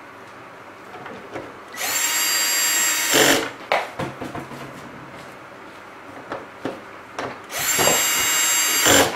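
Cordless drill/driver driving the housing screws into the body cover of a moving-head stage light: two runs of the motor whine, each about a second and a half long, each ending in a brief louder burst. Small clicks and knocks of handling come between them.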